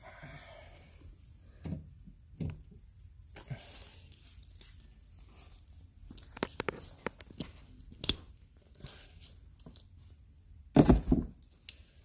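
Handling noise: scattered clicks, rustles and knocks, with a pair of heavy bumps, the loudest sound, about a second before the end.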